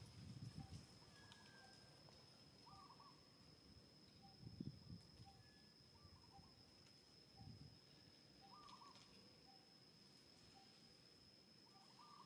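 Near silence with faint outdoor ambience: a steady high insect-like drone, a faint low bird note repeated at an even pace about every half second, and a few slightly longer curling bird calls. Three brief low rumbles, like wind on the microphone, occur in the first half.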